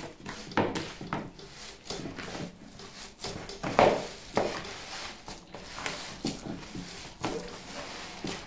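A hand kneading a stiff, crumbly dough of ground almond, sugar and egg in a bowl: irregular squashing presses and dull knocks, the loudest about four seconds in. The dough is being worked with the second egg until the almond gives up its oil and it binds.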